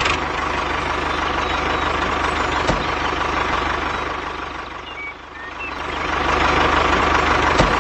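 Tractor engine running with a steady low knocking pulse. It eases off about five seconds in and then builds back up.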